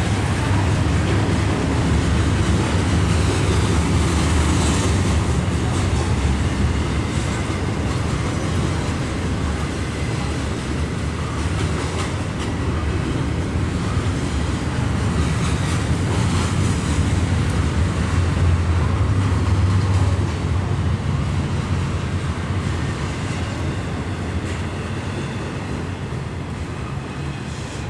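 CN intermodal freight train of double-stacked container cars rolling steadily past, a continuous low rumble of wheels on rail, heard through a window pane. It eases off a little near the end.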